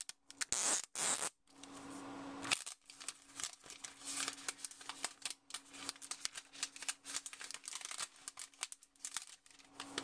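Thin plastic protective film crinkling and rustling as it is peeled off a tablet and handled, with many small clicks and taps.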